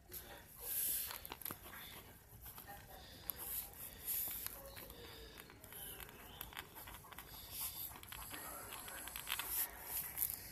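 Scattered soft clicks and short scratchy rustles close to the microphone, some of the clicks coming in quick runs.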